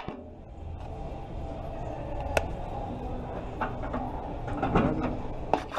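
Shop background noise: a steady low hum with faint indistinct sounds, broken by a few sharp clicks, the loudest about two and a half seconds in and a cluster near the end.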